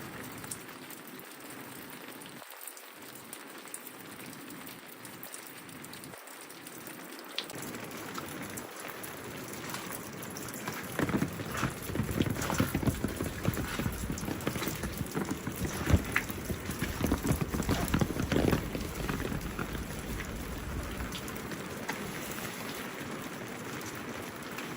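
Steady rain falling, with individual drops ticking close by. It grows louder and deeper for several seconds in the middle, then eases back.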